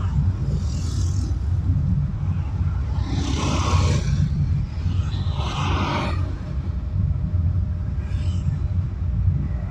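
Traffic on a busy city main road heard from a moving car: a steady low rumble of engine and tyres, with several vehicles swishing past, the loudest about three and five seconds in.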